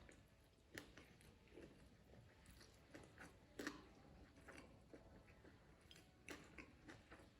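Faint close-up chewing: a person eating, with irregular soft wet smacks and clicks of the mouth a few times over the seconds.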